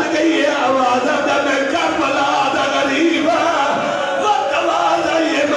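A man's voice chanting a mournful recitation into a microphone in long, wavering sung notes, as at a Shia majlis.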